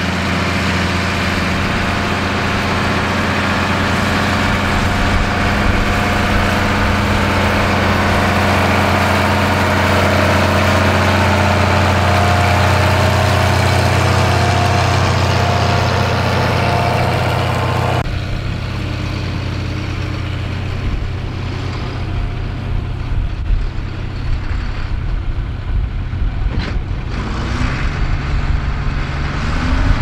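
Diesel tractor engine pulling hard under load while ploughing with a mounted reversible plough: a steady drone with a strong low hum. About two-thirds of the way in the sound changes suddenly to another tractor engine, quieter and more uneven, with a few short knocks.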